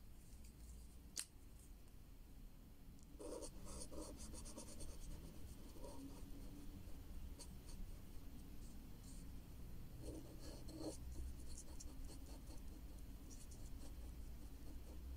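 Felt-tip marker scribbling on paper in quick, short scratchy strokes as it colours in small patches. The scribbling starts about three seconds in.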